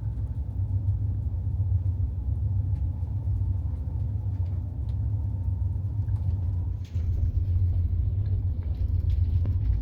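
Steady low engine rumble heard from inside a moving vessel or vehicle. A brief dip about seven seconds in is followed by a layer of higher hiss.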